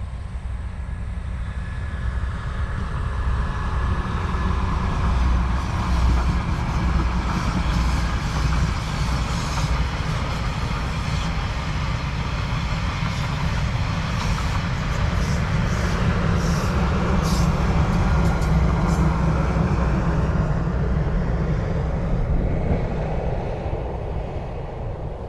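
Queensland Rail Spirit of Queensland diesel tilt train passing with a steady rumble that builds over the first few seconds. A run of sharp clicks comes through in the middle, and the rumble eases near the end.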